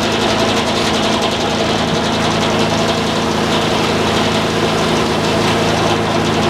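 Sawmill's engine running at a steady speed.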